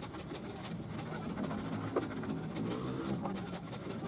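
Jointer hand plane pushed along a wooden board, its blade shaving the surface with a dry scraping hiss.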